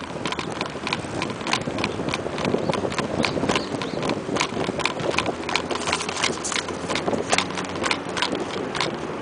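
Bicycle rolling along a sidewalk, rattling and clicking irregularly several times a second as it jolts over the pavement, over a steady rushing noise.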